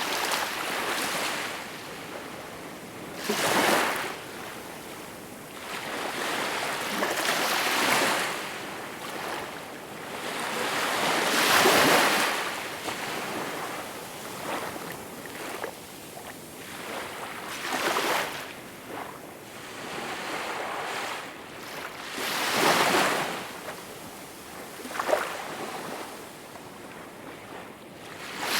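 Small waves breaking and washing in: a rush of water that swells and fades every few seconds, the biggest surge about twelve seconds in.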